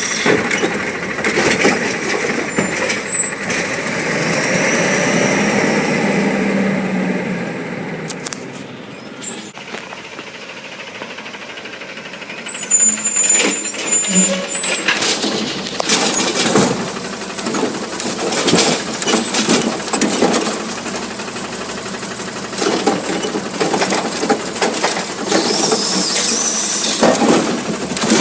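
Garbage truck collecting recycling: the engine revs up and down, with air-brake hiss and a loud burst about halfway through, then a run of knocks and clattering.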